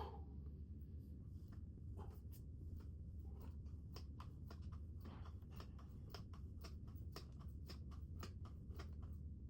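Faint, quick breathing and body or clothing rustle from a person doing a fast set of push-ups, two or three short sounds a second, over a steady low hum.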